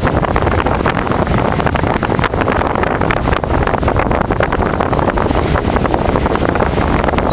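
Strong tropical-storm wind buffeting the microphone: a loud, steady rushing roar with constant gusty thumps.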